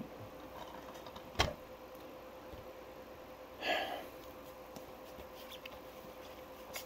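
Quiet room with a faint steady hum, broken by a sharp click about a second and a half in and a brief rustle near the middle: plastic movie cases being handled, one put down and others picked up.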